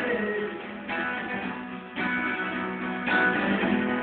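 Two acoustic guitars strummed, a new chord struck about once a second over a sustained low note.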